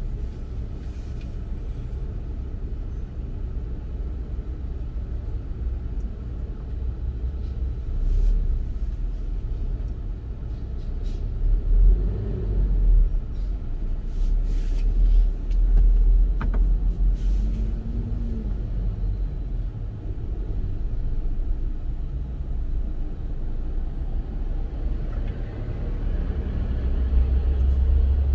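Low, steady rumble of idling and creeping road traffic, city buses among it. Engine notes rise and fall a couple of times in the middle as buses pull past, with a few short hisses. The rumble swells near the end as the traffic moves off.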